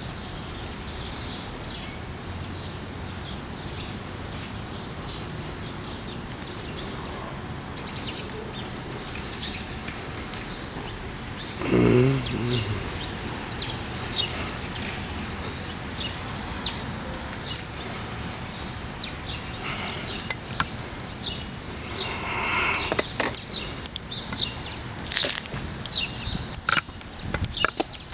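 Birds chirping: many short, high, falling notes repeated throughout, over a steady background rush. A brief, louder, low sound that slides in pitch comes about twelve seconds in.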